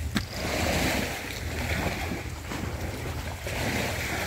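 Wind noise on the microphone mixed with water washing at the river's edge, swelling and easing every couple of seconds over a steady low rumble.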